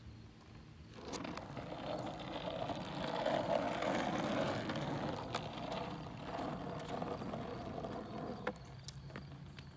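Skateboard wheels rolling over rough asphalt as the rider pushes along: a rumbling noise that starts about a second in, builds, and dies away near the end, with a few sharp clacks.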